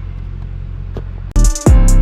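A semi-truck's engine hums steadily at idle. About a second and a half in, loud music with a heavy drum beat and bass cuts in suddenly over it.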